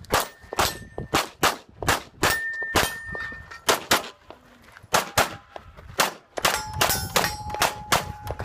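Rapid Glock pistol shots, roughly two a second, each hit setting a steel target plate ringing with a clear metallic tone. The ring is higher-pitched in the first half and lower in the second, as the shooter moves from one plate to another.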